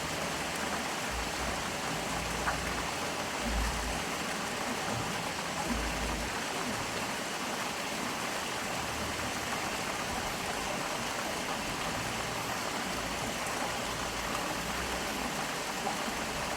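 Stream flowing steadily: an even rush of running water.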